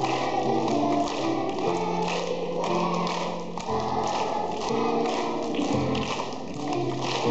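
Children's choir singing a song over musical accompaniment, with hand claps along the beat.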